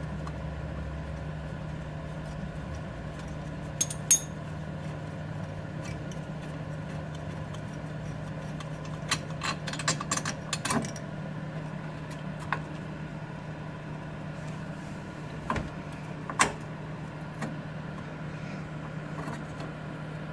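Hand tools on engine-mount bolts: scattered metallic clicks and clinks, with a quick run of clicks about halfway through, over a steady low hum.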